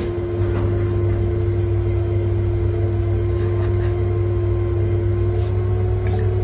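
Electric potter's wheel motor running with a steady hum, a little louder from about half a second in, while wet clay is worked on the spinning wheel.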